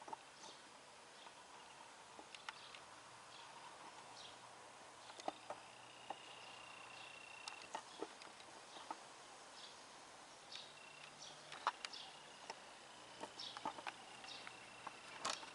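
Quiet outdoor ambience: a faint, steady, high thin tone that comes and goes, short high chirps, and scattered sharp clicks and taps over a low hum.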